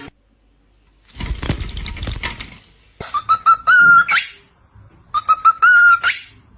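A parrot whistling the same short phrase three times, about two seconds apart: a few quick clipped notes, then a long held note that sweeps up sharply at its end. Before the first phrase there is a second or so of rustling noise.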